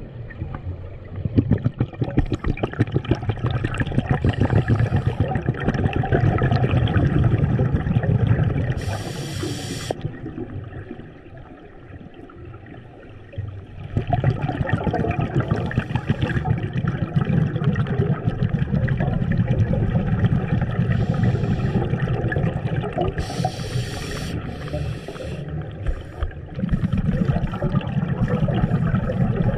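Scuba diver breathing through a regulator underwater: exhaled bubbles rumble and crackle past the camera housing, broken twice by a short high hiss of inhalation, with a quieter pause partway through.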